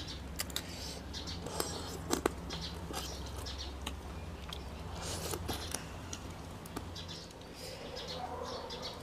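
A person chewing a mouthful of food, with small clicks and smacks scattered through over a low steady hum.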